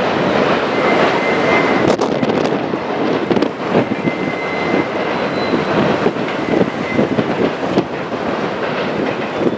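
Freight cars of a long Canadian Pacific train rolling past, a steady rumble with irregular clicks and knocks from the wheels and a thin high wheel squeal that comes and goes.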